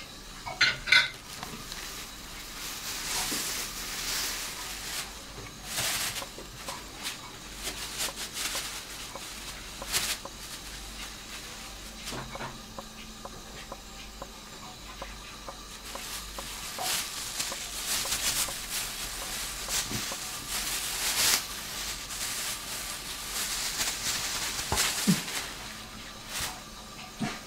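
Thin plastic bags crinkling and rustling in irregular bursts as a kitten plays in them.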